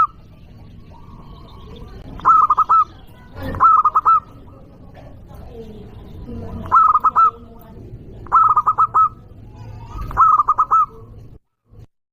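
Zebra dove (perkutut) cooing loudly: five short rolling coo phrases, each a quick run of notes, a second or few apart. The sound stops abruptly near the end.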